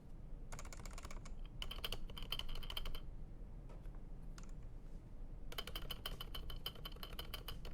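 Typing on a computer keyboard: bursts of rapid keystroke clicks, a pause with a few single keys near the middle, then steady typing again for the last couple of seconds. Picked up by a stereo pair at ear level, it sounds a little less deep than the keyboard does in the room.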